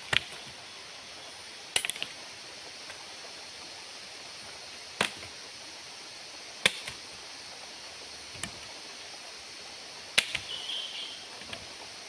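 A series of sharp knocks or snaps at irregular intervals, a few in quick clusters, over a steady background hiss.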